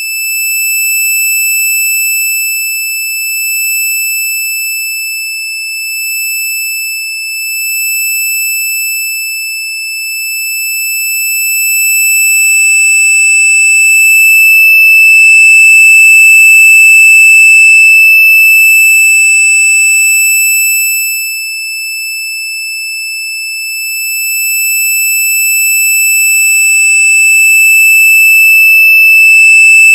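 A continuous, piercing high-pitched electronic tone held at one unchanging pitch, slowly swelling and easing in loudness: a synthetic annoying-sound effect played very loud.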